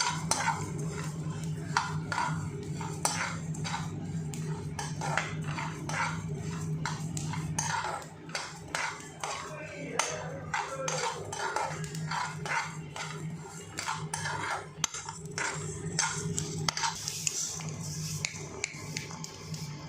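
Metal spatula scraping and knocking against a karahi again and again as whole spices (cumin, coriander seed, fennel) are stirred while they roast.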